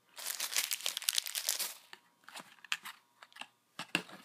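Packaging crinkling as it is handled: a dense crinkle for the first couple of seconds, then scattered crackles and small clicks.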